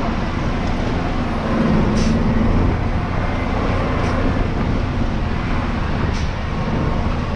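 Truck engine running steadily while driving on a rough dirt road, with three short sharp clicks about two seconds apart.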